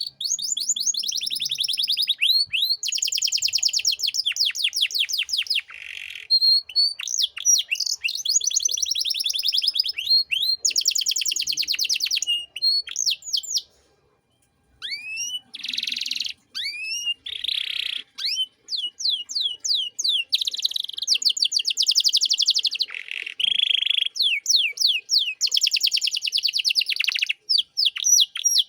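Domestic canary singing a long, fast song of high-pitched trills and rapid rising chirps, with a break of about a second near the middle.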